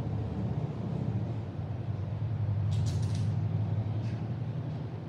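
A steady low hum throughout. A quick run of short sniffs comes about three seconds in and one more about a second later, as a cat sniffs at a backpack.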